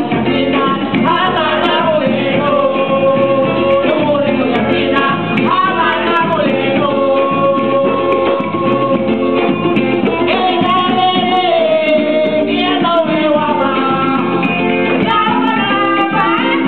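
Garifuna music performed live: women's voices singing a melody of long held notes over a plucked guitar accompaniment.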